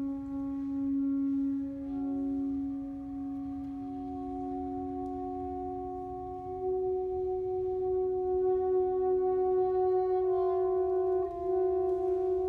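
Saxophone quartet of soprano, alto, tenor and baritone saxophones playing long held notes that overlap into slowly shifting chords. One note at a time enters or moves to a new pitch every few seconds.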